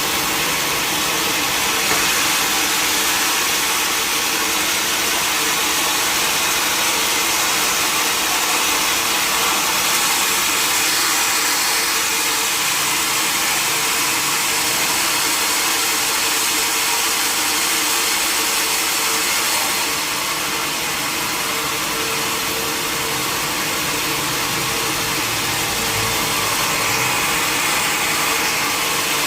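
Sawmill machinery running steadily, a constant hiss-laden whine over a steady hum, with a slight drop in level about two-thirds of the way through.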